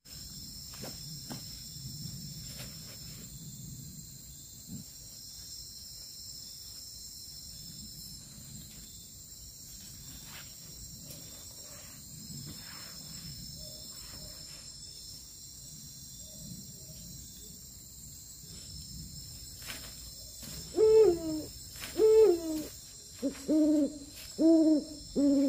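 Night-time forest insects trilling steadily in several high pitches, over faint rustling and handling noise. From about 20 seconds in, a series of loud owl hoots, about seven, each sliding down in pitch, become the loudest sound.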